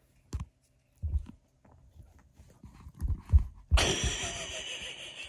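Soft thuds on a sofa cushion as a small dog moves about, then a longer rustle that starts just before four seconds in and slowly fades.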